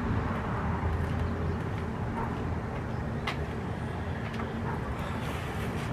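Steady low background rumble and hum, with one short click about three seconds in.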